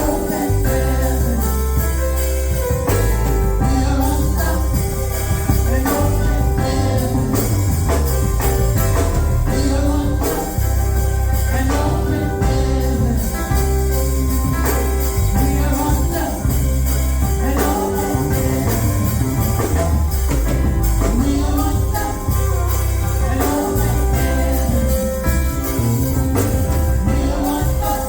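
Gospel music: singing over a strong, steady bass line with percussion.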